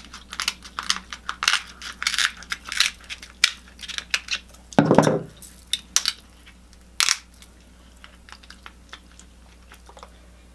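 Close-miked cracking and crunching of king crab leg shells being broken and picked apart by hand: a fast run of sharp clicks and snaps, with one louder, lower burst about five seconds in, dying away to faint ticks after about seven seconds.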